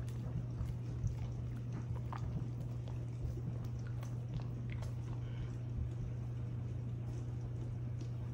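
A low steady hum with scattered faint light clicks and taps.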